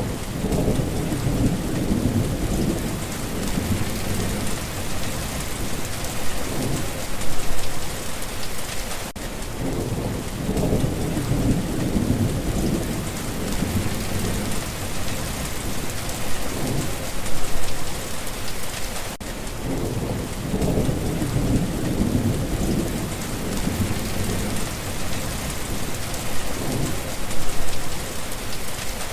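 Steady rain falling, with low rolling thunder that swells and fades, loudest about every ten seconds.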